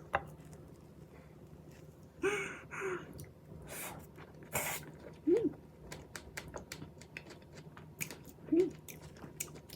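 Close-miked eating of strawberries with whipped cream: wet mouth clicks and smacks from chewing, with a few brief voiced sounds from the eater at about two, five and eight and a half seconds in.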